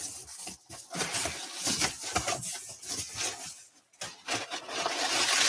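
Rummaging through a cardboard box: irregular rustling with light knocks, turning into a louder, denser rustle about four seconds in.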